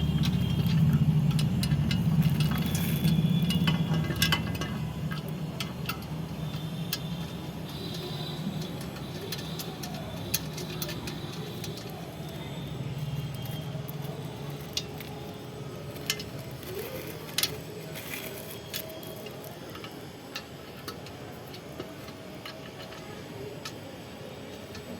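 Scattered metallic clicks and clinks of a spanner and nuts being worked on a steel support pipe while it is bolted in place. A low drone fades out over the first half.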